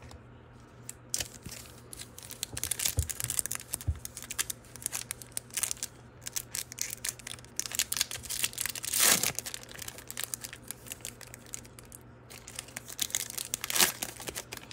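Foil trading-card pack wrapper crinkling and being torn open, an irregular run of crackles with two louder tears, one about nine seconds in and one near the end.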